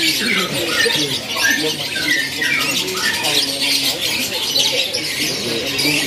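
Many caged canaries chirping and twittering at once in a dense, continuous chorus, with people talking in the background.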